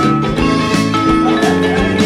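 Background music: an instrumental track with held notes over a steady beat.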